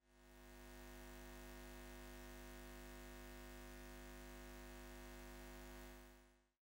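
A faint, steady hum of several held tones, fading in at the start and fading out near the end.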